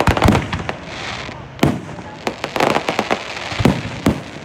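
Aerial fireworks shells bursting overhead: a quick cluster of sharp bangs at the start, a single loud report about a second and a half in, more bangs near the end, and crackling stars between them.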